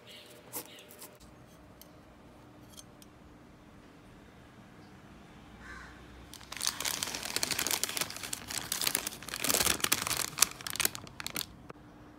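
A light click, then from about six and a half seconds in, several seconds of loud crisp crinkling and crackling from the paper bag and the flaky puff pastry as a piece of the pastry is cut and lifted with a fork.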